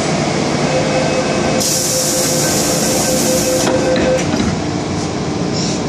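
MTR Island Line M-Train pulling out of a station, heard from inside the car: steady motor tones over wheel and track noise as it accelerates into the tunnel, with a hiss lasting about two seconds near the middle.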